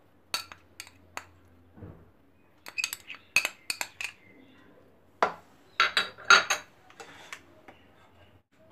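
A metal spoon clinking and scraping against a small dish and the rim of a bowl, in scattered sharp clicks, with the loudest run of clinks about five to six seconds in.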